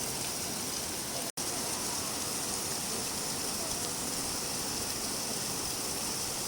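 Steady rain falling, an even hiss of drops, that cuts out for an instant about a second in.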